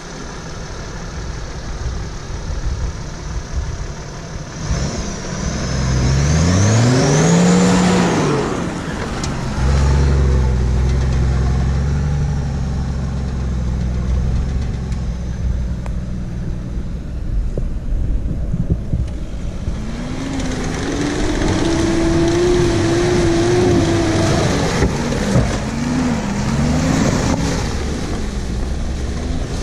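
Off-road 4x4 engines, a Toyota Land Cruiser 80's 4.2-litre turbodiesel and a Mitsubishi Pajero Mk3, revving as they pull through deep mud. The revs rise and fall about six to nine seconds in, settle into a steady drone, then waver up and down again in the second half as a vehicle works through the ruts.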